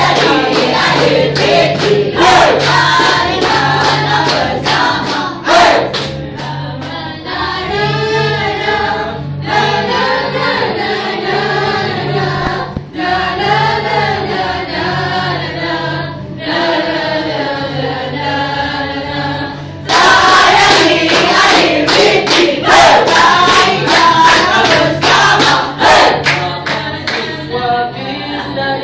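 A group of young men and women singing a Malay song together, keeping time with hand claps. The clapping is strong for the first few seconds and again from about twenty seconds in, and the singing is softer in between.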